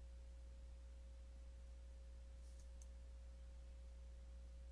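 Near silence: a steady low hum with a faint, steady pure tone above it, and a few faint computer keyboard clicks about two and a half seconds in.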